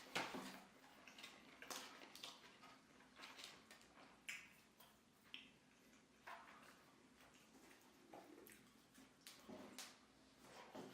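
Quiet, close-up eating sounds: chewing a fried chicken sandwich, with scattered small mouth clicks and soft rustles, a slightly louder one right at the start.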